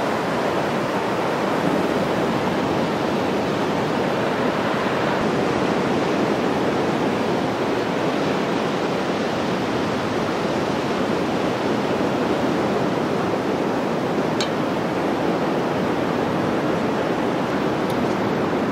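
Sea surf on a beach: waves breaking and washing in as a steady rush of noise.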